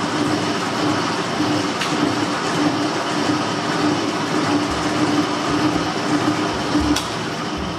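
Vertical band saw running and cutting through a cured fiberglass (FRP) sheet: a steady, loud rasping noise with a hum that comes and goes.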